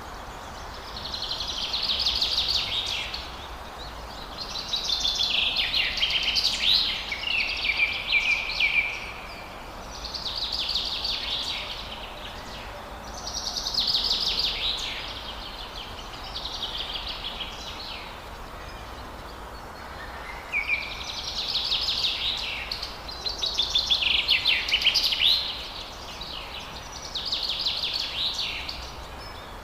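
Forest songbirds singing short, rapid trilled phrases, a burst every few seconds, over a faint steady background hiss.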